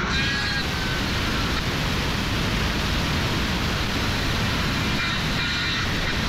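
Corded circular saw cutting along a clamped straight-edge guide through a thin wooden sheet, running steadily under load the whole time.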